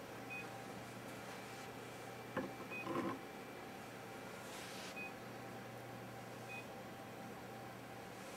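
Three short, high electronic beeps a few seconds apart from a reflow rework station's controller partway through its heating profile, over a low steady hum. A click and a brief rattle come near the middle, then a short hiss.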